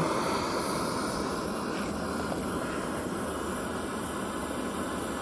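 Extremus gas canister camping stove burner running steadily under a pot of water that is almost boiling: an even rushing hiss.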